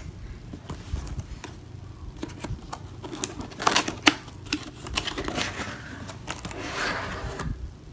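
A cardboard box being opened by hand: a run of clicks, taps and scrapes with some rustling, the sharpest knock about four seconds in.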